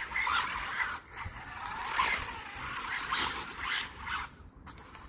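WLtoys A959-B RC car being driven with its gyro off: a string of short, irregular scraping bursts as the tyres scrabble and slide on the ground. This is the car struggling to hold a line without gyro stabilisation.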